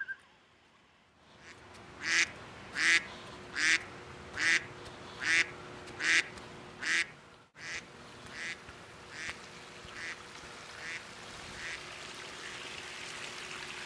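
A duck quacking in an even series of about a dozen quacks, a little under a second apart, loud at first and then fading away.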